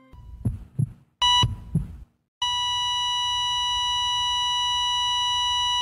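A few dull low thumps and a single short electronic beep about a second in. From about two and a half seconds a steady unbroken beep tone holds: a hospital patient monitor flatlining, the sound of a heart stopping.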